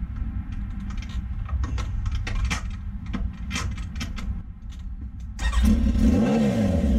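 Kawasaki ZX10 sportbike's inline-four engine cranked on the starter and catching straight away, about five seconds in. It gives one quick blip of the throttle and settles into a steady idle. Scattered clicks and knocks come first, before the start.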